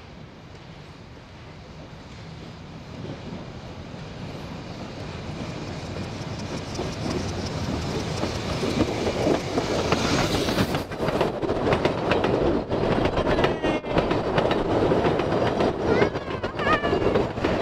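Puffing Billy narrow-gauge steam train approaching, growing steadily louder. The locomotive passes about ten seconds in, then its carriages clatter past over the rail joints in a quick run of sharp clacks.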